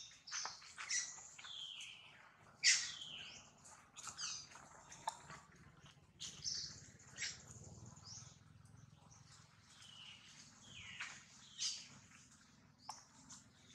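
Thin, high-pitched crying squeaks of a newborn baby macaque, each a short call sliding down in pitch, coming irregularly about once a second.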